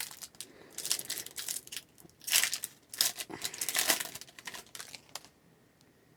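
Wrapper of a hockey card pack being torn open and crinkled in a run of quick crackly bursts, which stop about five seconds in.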